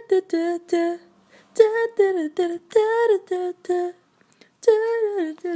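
A woman's voice humming a wordless tune in short sung notes, standing in for music, in three phrases with brief pauses between them.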